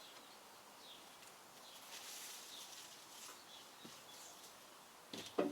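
Faint birds chirping now and then over quiet outdoor background, with no engine running or cranking. A short, louder sound comes just before the end.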